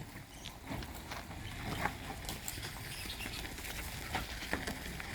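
Rustling with scattered light clicks and taps over a low steady rumble.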